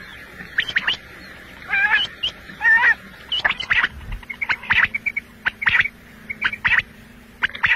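Quail calling: a run of short, sharp chirps at irregular intervals, some in quick doubled notes.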